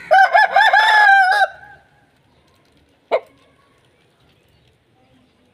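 Aseel rooster crowing once: a loud crow about a second and a half long, broken into a few quick notes before a held ending. A short sharp sound follows about three seconds in.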